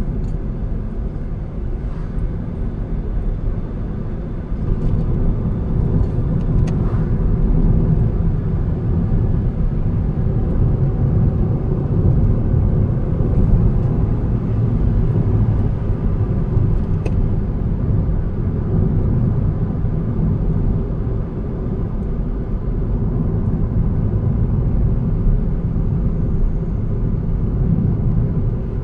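Car driving along a road, heard from inside the vehicle: a steady low rumble of engine and tyre noise, a little louder from about five seconds in.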